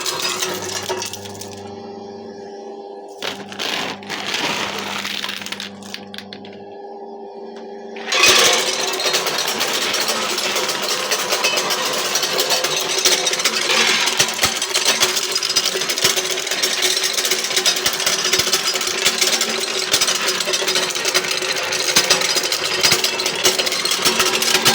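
Electric nut-cracking machine running: its motor hums steadily, and about eight seconds in a dense, continuous clatter of nuts cracking and shells breaking starts as nuts feed through it.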